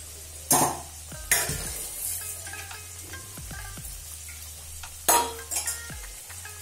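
Potato-stuffed dough pastry deep-frying in mustard oil in an iron kadhai, with a steady sizzle. Four short, sharp sounds, louder than the sizzle, come in two pairs: about half a second to a second and a half in, and again about five seconds in.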